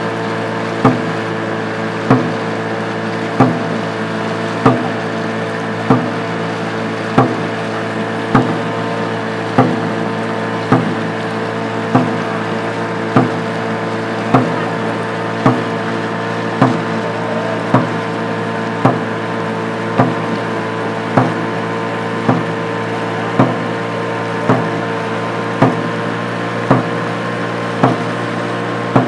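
Dragon boat drum struck in a steady rhythm, one beat about every 1.2 seconds, setting the paddlers' stroke rate, over a steady motorboat engine hum.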